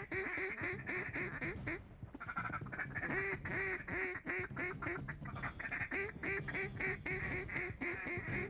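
Duck calls blown in fast runs of short quacks, about five a second, to work circling ducks toward the decoys. There is a brief pause about two seconds in.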